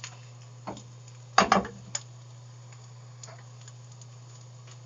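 Utensil clinking and knocking against the frying pan and plate as the cooked omelette is lifted out and plated: a handful of short sharp clicks, loudest in a cluster about a second and a half in, then a few fainter ticks. A steady low hum runs underneath.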